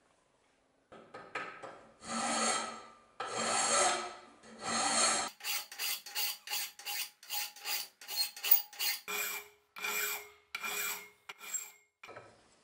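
Flat hand file rasping back and forth across the edge of a steel knife blade clamped in a vise. First a few long strokes about a second each, then shorter, quicker strokes, slowing again near the end.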